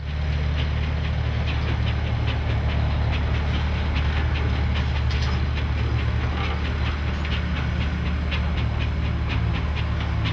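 Steam-engine-driven sawmill running: a steady low hum with a regular light ticking, about three ticks a second.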